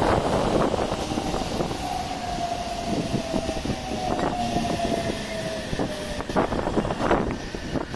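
Aichi Loop Railway electric train running, with a motor whine that slowly drops in pitch over several seconds and wheels knocking a few times near the end.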